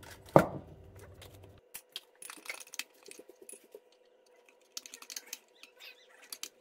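A sharp knock about half a second in, then a run of light, irregular clicks and taps from a utensil against a jar as sourdough starter is fed and stirred.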